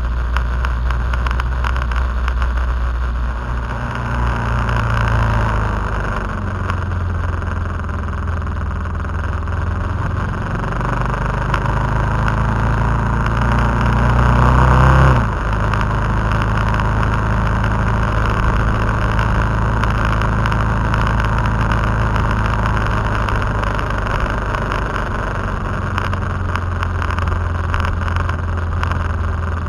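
KTM 990 SMT's V-twin engine running under way over a steady rush of wind. Its pitch climbs to a peak about fifteen seconds in, then drops abruptly and settles back to a steady pull.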